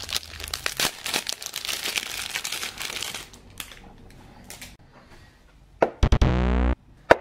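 Cellophane and card toy packaging crinkling and rustling as an action figure is handled and pulled out of its packet, for about three seconds, followed by a few soft clicks. About six seconds in, loud synthesizer music starts abruptly and cuts off briefly before a click near the end.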